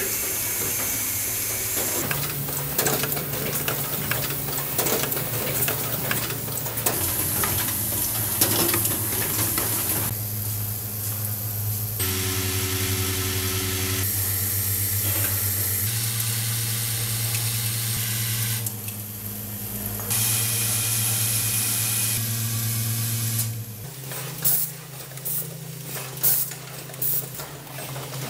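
Automatic circuit-breaker assembly machine running: a steady machine hum with hissing air and rapid mechanical clicking, changing abruptly in character every couple of seconds. Near the end the hum drops and a series of short, sharp hisses of air break in.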